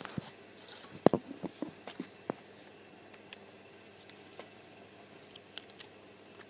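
A run of small, sharp clicks and taps from small hard objects being handled, busiest from about one to two and a half seconds in, then a few fainter ticks.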